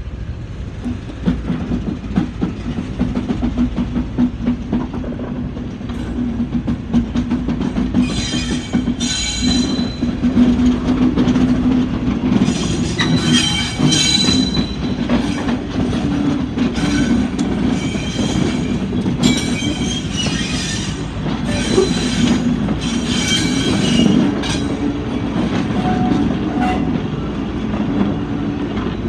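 Class 73 locomotive's diesel engine running with a steady hum as the train moves off slowly, with wheel flanges squealing in repeated bursts from about eight seconds in as it runs over curved track and pointwork.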